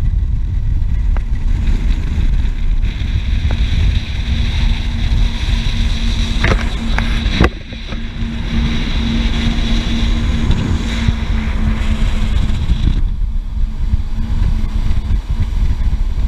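Motorboat running at speed, a loud steady rumble of engine, water and wind, with a steady engine tone through the middle. A few sharp clicks and a brief drop in level come about halfway.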